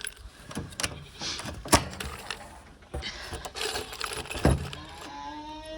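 Metal tools and hardware clinking and rattling as they are handled, with several sharp knocks. Near the end a goat starts bleating, one drawn-out call.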